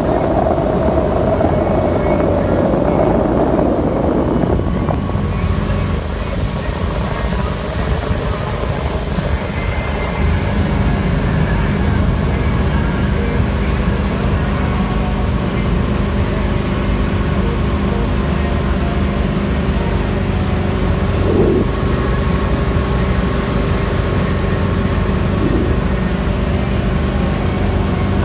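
Motorboat engine running with a steady low drone. A louder, higher rushing noise over the first four seconds or so stops abruptly.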